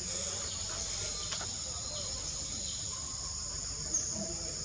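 Steady high-pitched chorus of forest insects, with a brief sharp chirp about four seconds in.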